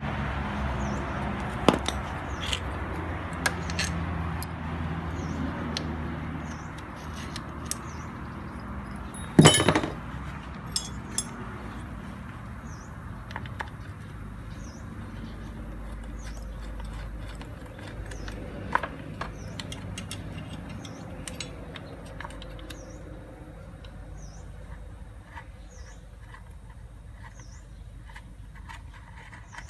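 Metal hand tools clinking on a motorcycle engine: scattered small clicks and one louder clank about nine and a half seconds in, over a low hum that fades after about six seconds.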